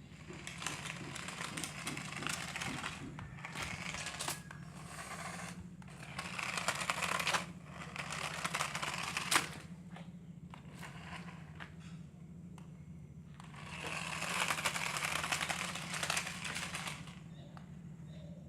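Packaging being handled and torn open: crinkling and rustling in several bursts, with a sharp click a little past halfway, over a steady low hum.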